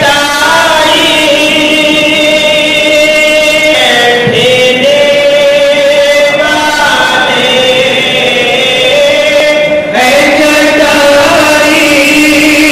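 A man's voice chanting into a microphone over a loudspeaker in long, drawn-out melodic notes, with short breaks about four and ten seconds in.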